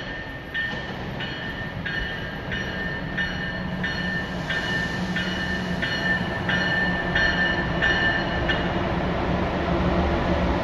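An electric commuter train approaching the platform, its warning bell ringing about one and a half strokes a second and stopping shortly before the end, over a rumble of wheels on rail that grows louder as it nears.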